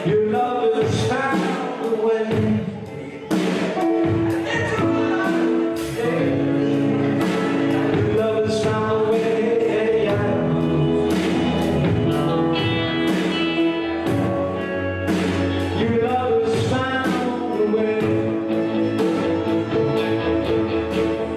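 Gospel song: singing over instrumental backing with frequent drum hits.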